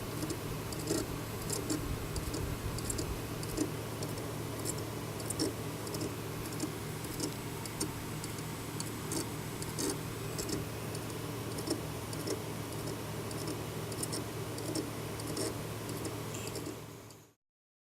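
WD Red WD40EFRX 3.5-inch hard drive running with a steady hum and irregular clicking ticks several times a second, the abnormal noise the owner takes for a drive beginning to fail. The sound fades out near the end.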